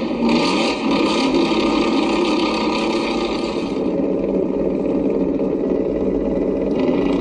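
Scale RC crawler (Traxxas TRX-4) driving, its electric motor and gear drivetrain whining and rising and falling in pitch with the throttle. Wind buffets the microphone underneath.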